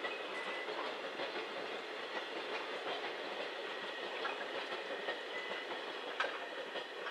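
Freight train of container flat wagons rolling past at speed: a steady rumble of steel wheels on rail, with clicks as the wheels cross rail joints and a sharper knock about six seconds in.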